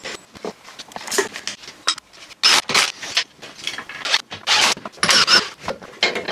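Workshop noise of engine and gearbox work: quick, irregular bursts of scraping and clattering metal parts and tools.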